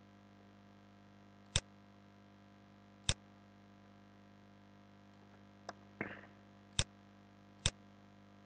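Sharp single clicks of a computer mouse and keyboard, about five spread a second or so apart, with a short scuff about six seconds in, over a faint steady hum.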